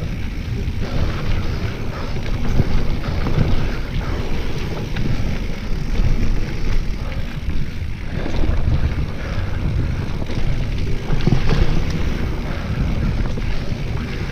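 Wind rushing over the microphone of a bike-mounted camera while a mountain bike rolls fast down a dirt singletrack, its tyres crunching over the trail and the bike clattering over bumps and roots.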